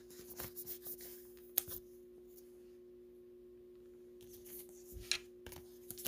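Soft clicks and light rustles of trading cards being handled and set down on a table, over a steady low hum.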